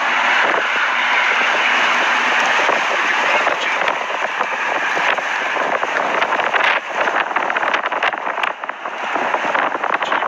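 Strong tornado wind rushing over a phone microphone: a loud, steady roar with crackling buffets that turn choppier in the second half.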